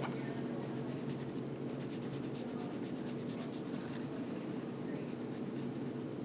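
Quiet, scratchy rubbing of a bone-dry clay piece, light strokes going steadily back and forth, over a steady electrical hum.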